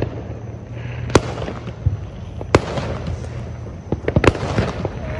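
Fireworks going off at a distance: a sharp bang about a second in, another at about two and a half seconds, and a quick run of crackling pops around four seconds, over a steady low rumble.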